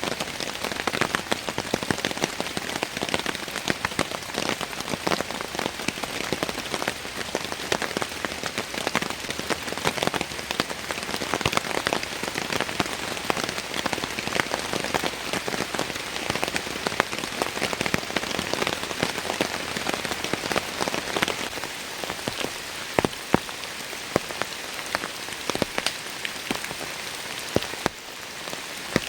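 Rain falling steadily, with many sharp hits of single drops close by over a dense hiss. The level drops a little near the end.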